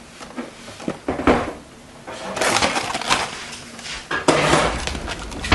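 Clattering and rummaging of household objects being handled, in several noisy bursts with a sharp knock at the end.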